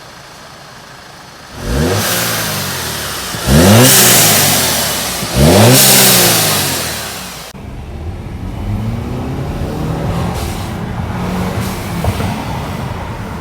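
Audi 2.0-litre turbocharged four-cylinder revved three times in quick succession from idle, each rev rising sharply and falling away, with a loud hissing rush from the atmospheric diverter valve venting boost as the throttle closes. After the hiss cuts off suddenly, the engine runs on steadily.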